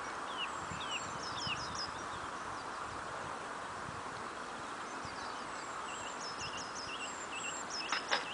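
Small birds chirping and calling repeatedly over a steady background hiss, with two sharp clicks near the end.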